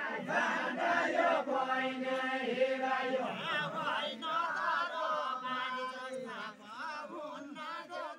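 A group of men singing a Deuda folk song together in unaccompanied chant, many voices overlapping.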